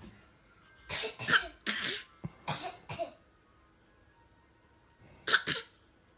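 A father and a baby coughing in turn, the baby copying his coughs. There are short coughs from about a second in to three seconds, then two more near the end.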